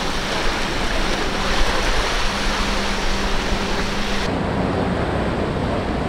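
Quad outboard motors on a fast center-console boat running at speed with a steady hum, under the rush of spray and wake. About four seconds in the sound cuts abruptly to another planing boat's engine and water rush.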